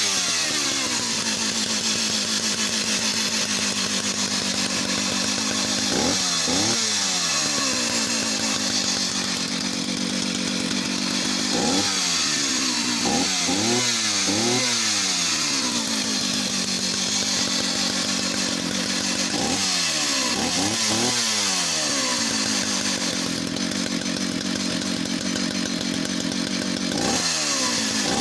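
Vintage Jonsered 751 two-stroke chainsaw running just after a cold start, held at a steady idle and revved up and back down several times, sometimes twice in quick succession.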